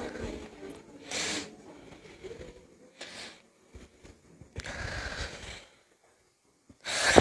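A person drawing several short, breathy breaths and sniffs, quiet and spaced about a second or two apart, then a loud cough begins near the end.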